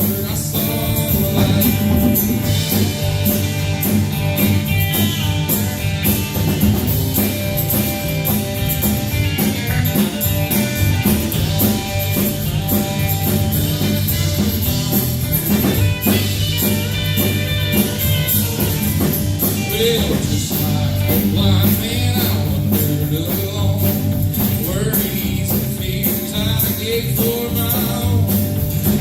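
A worship song played by a band with singing, guitar and drums, going steadily throughout.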